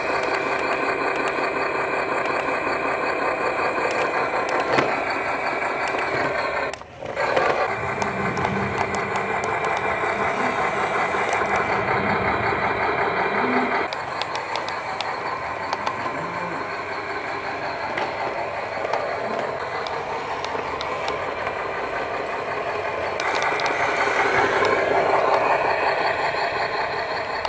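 Simulated truck engine sound from the RC model truck's sound module, played through its small speaker as the truck drives. It runs steadily, cuts out briefly about seven seconds in and starts again, goes quieter about halfway, then grows louder near the end.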